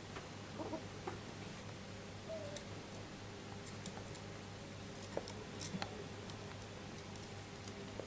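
Faint steady hum with a few soft clicks and ticks, the albino turtle dove shifting its feet on its wooden perch, and one short faint note a little over two seconds in. The dove does not coo in this stretch.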